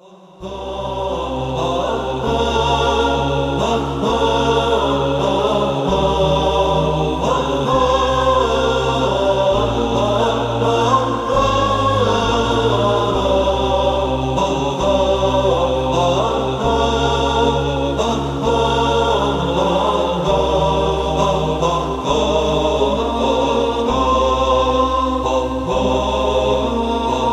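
Intro music of a choir of voices chanting over a low held note that changes pitch every second or two.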